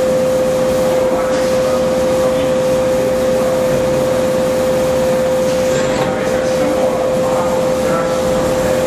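Stone-cutting bridge saw running with its circular blade cutting a marble slab: a loud, steady machine noise with a constant hum.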